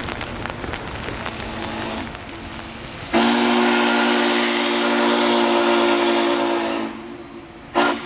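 Spokane, Portland & Seattle 700's Hancock three-chime long-bell steam whistle: after about three seconds of rain noise, one long chime blast of about four seconds that tails off, then a short toot near the end.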